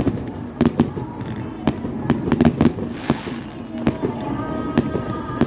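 Fireworks display: a rapid, irregular string of bangs and crackles from aerial shells and ground fountains, with a brief hiss about three seconds in and a thin whistling tone near the end.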